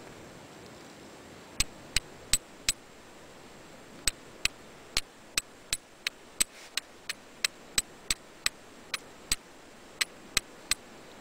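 Flint and steel: a steel striker struck repeatedly against a piece of flint to throw sparks. About twenty sharp, high clicks come in quick runs of around three a second, starting a moment in.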